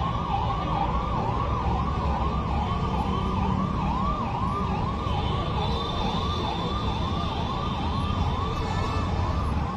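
An electronic siren in a fast yelp, its pitch sweeping up and back about two to three times a second without a break, over a low steady rumble.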